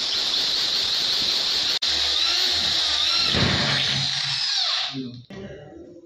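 Electric drill boring into an aluminium door frame, the bit giving a steady high squeal in the metal. It breaks off for an instant about two seconds in and stops about five seconds in.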